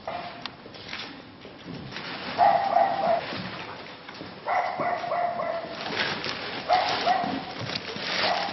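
A dog barking in three drawn-out calls.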